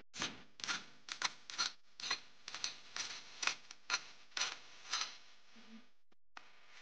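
Hand tools scraping and tapping against stone and mortar in an irregular run of short, sharp strokes, about three a second, stopping about five seconds in.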